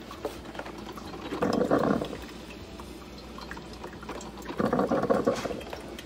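Mr. Coffee drip coffee maker brewing, its hot water bubbling through with two louder spells, about a second and a half in and again near the end.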